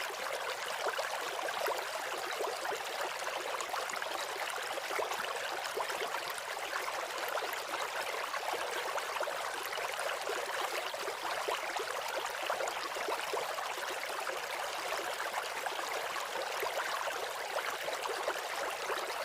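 Steady rushing, trickling water, thin in sound with no low rumble, unchanging throughout.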